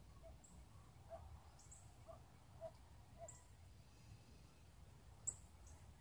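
Near silence with faint small bird chirps, high and brief, repeating every second or two. The clearest comes near the end, and a few soft lower notes come in the first half, over a low background rumble.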